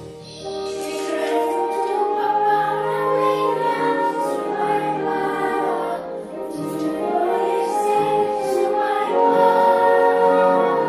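Children's choir singing a song in Twi, with several voices together holding long notes.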